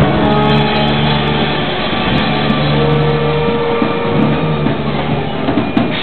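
A brass street band playing live and loud, with long held horn notes.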